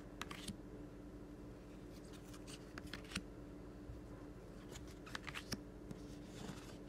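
Quiet handling of a stack of large printed cards being flipped through: short clicks and slides come in three or four clusters as cards are slid off the deck and laid down, with a soft rustle near the end. A faint steady hum lies under it.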